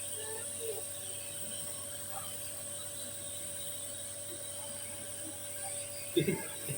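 Compressor nebulizer running with a steady hum and a constant hiss of air and mist. A brief louder sound breaks in about six seconds in.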